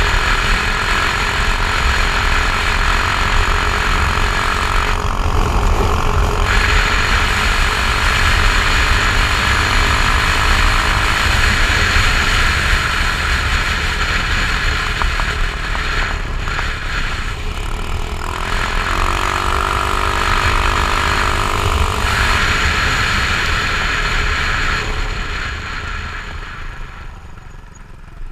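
Strong wind buffeting the microphone over a GY6-type 150cc four-stroke scooter engine running at road speed, the engine fitted with a no-rev-limit CDI. The engine's pitch shifts up and down about two thirds of the way through, and the sound dies down near the end as the scooter slows.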